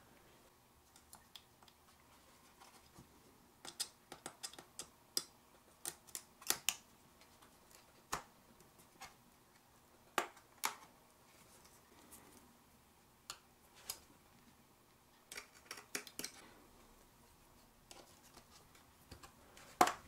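Plastic base cover of a Dell Inspiron 15-5000 laptop being pried loose with a prying tool: sharp plastic clicks and snaps as its retaining clips give way and the tool works along the seam. The clicks are scattered, some coming in quick runs of several.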